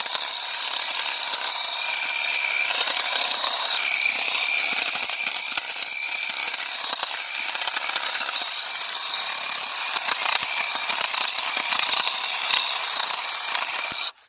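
Keen 151S dry washer running, a continuous gritty rattle of dirt and gravel shaking through it with a faint steady whine, cutting off suddenly near the end.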